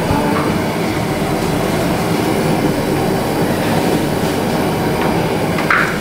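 Steady rushing noise of gas stove burners turned up high under a pot and a wok of simmering vegetables, with a brief sharper sound near the end.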